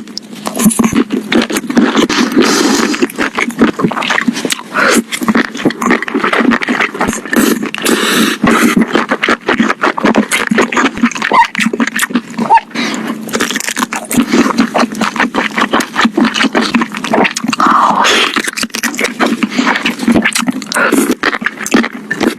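Close-miked chewing and crunching of crispy fried chicken: dense, irregular crunches and wet mouth sounds go on without a break.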